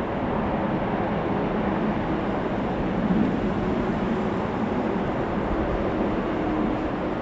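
Airliner engines running steadily, a continuous rumble and roar.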